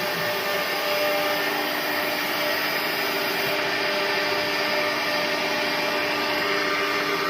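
CNC drilling-milling machine's 6 kW spindle running steadily: an unchanging whine of several held tones over a hiss.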